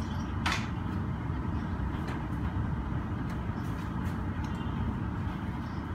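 Steady low rumble of airport apron noise from aircraft and ground vehicles, with a few short clicks and knocks on top, the clearest about half a second in.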